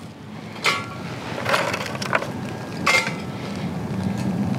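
Small twigs being put into a titanium flat-pack wood stove: about four sharp knocks and clinks of wood against the metal, some with a brief metallic ring.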